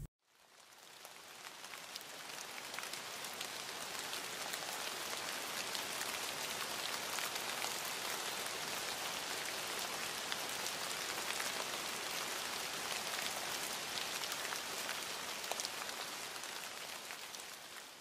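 Steady rain patter: an even hiss full of tiny crackling drops, fading in over the first couple of seconds and fading out near the end.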